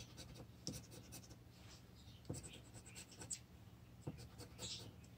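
Faint scratching of a paper scratch-off lottery ticket: short, intermittent rasping strokes scraping the coating off the play area, with a few light taps.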